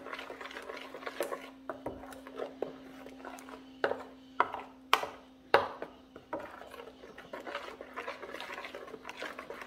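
Thick corn batter being stirred in a bowl, the utensil scraping and clicking against the bowl, with a few sharper knocks around the middle. A faint steady hum runs underneath.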